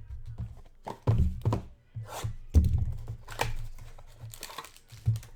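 Trading-card packs and cards handled on a table: irregular thumps and taps as they are set down and shuffled, with a short rustle of pack wrapper near the end.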